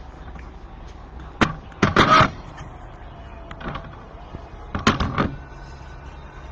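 Two short clusters of clattering knocks about three seconds apart, the first the louder, over a low steady hum.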